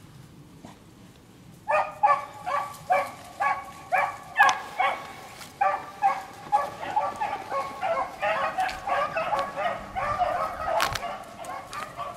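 Beagles baying while running a rabbit's track: short, evenly spaced bays, about two a second, start about two seconds in, and from about eight seconds in several hound voices overlap.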